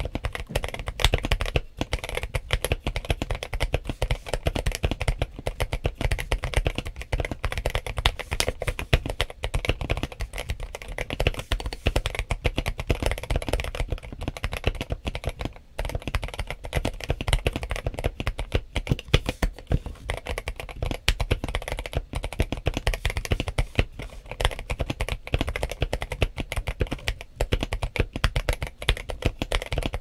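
Modded James Donkey RS2 (KBM1800) mechanical keyboard with Kailh Box Cream switches, Idobao 9009 MA-profile keycaps, Zip'N'Fit and a tape mod, typed on in a fast, continuous run of keystrokes with a brief pause about halfway.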